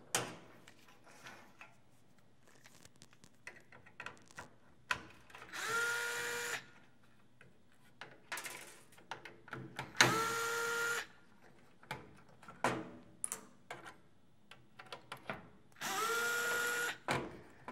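Cordless electric screwdriver taking out screws, running three times for about a second each: its motor whines up to speed and then holds steady. Light clicks of screws and metal parts being handled in between.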